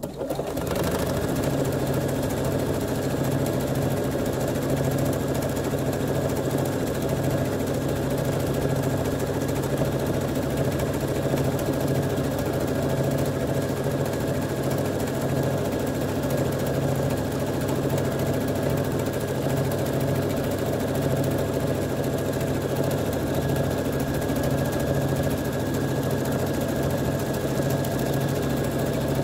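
Domestic sewing machine running at a steady speed, stitching a set stitch pattern through water-soluble film, with a fast, even chatter of needle strokes over its motor hum.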